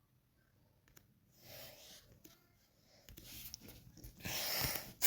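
Bubble-popping sound effect: a few short, soft pops spread out over several seconds, with breathy hissing between them, after about a second of silence.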